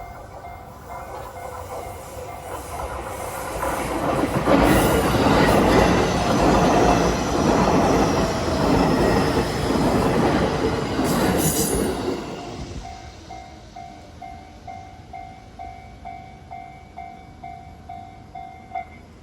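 A Japanese level-crossing bell dings in a steady rapid rhythm while a JR Nambu Line E233-series electric train passes. The train's running noise builds over a few seconds, stays loud for about eight seconds and then fades. The bell carries on alone and stops shortly before the end.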